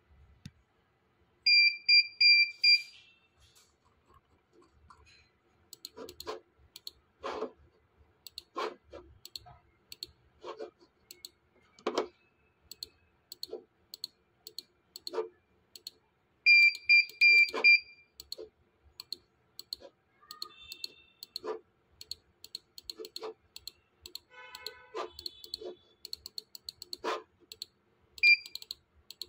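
Computer mouse clicking repeatedly and irregularly, with two quick runs of loud, high electronic beeps, about a second and a half in and again about halfway through, and one short beep near the end.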